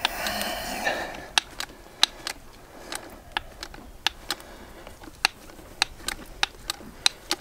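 A hand-pumped two-part resin dispensing gun injecting Formahoof resin through a mixing nozzle, giving a run of sharp, irregular clicks, two or three a second, as it is pumped. A short hiss is heard at the very start.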